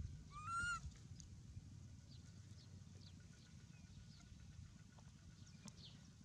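A single short, high-pitched animal call about half a second in, rising slightly, over faint scattered chirps and a steady low rumble.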